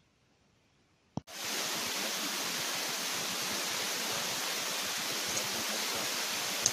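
Near silence, a single click about a second in, then a steady, even hiss of noise with nothing standing out.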